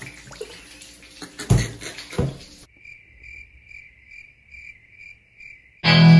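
Liquid poured from a plastic bottle splashing into a ceramic bowl, with two knocks. Then a cut to a cricket-chirping sound effect over dead silence, pulsing a little over twice a second. Music starts near the end.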